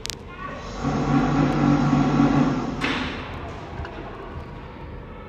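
A single 10 m air rifle shot, a sharp crack, right at the start. About a second later a louder, steady, low pitched hum runs for about two seconds and ends in a short hiss.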